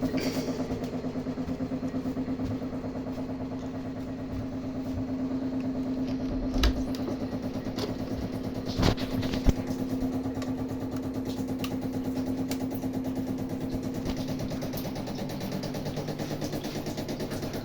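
Water pipes humming with a gas water heater running: a steady droning tone with a fast pulsing flutter. A few short clicks come in the middle. Near the end the main tone stops and a lower drone carries on.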